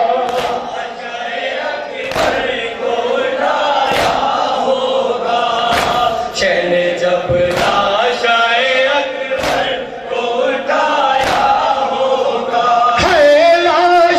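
Men chanting a noha, an Urdu lament, in chorus, with the mourners' hands striking their chests in unison about every two seconds (matam).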